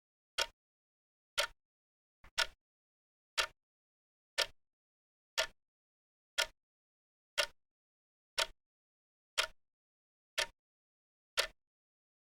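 Countdown timer's ticking sound: short clock-like ticks, one every second. One tick about two seconds in comes doubled.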